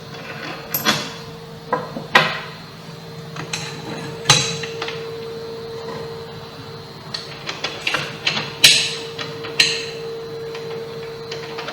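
Irregular sharp clicks and knocks of hard plastic and metal parts being handled: a cordless angle grinder's cutting-mode guard being fitted by hand onto its guard mount, with several louder knocks as it seats.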